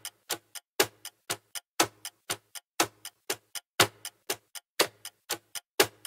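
Clock-ticking countdown sound effect: sharp ticks about four a second, every fourth tick louder, marking seconds.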